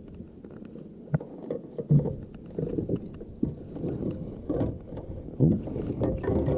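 Irregular knocks and thumps against a kayak hull, with rubbing and handling noise, as a smallmouth bass and gear are handled for measuring; the sharpest knocks come about a second in, at two seconds, and near five and a half seconds.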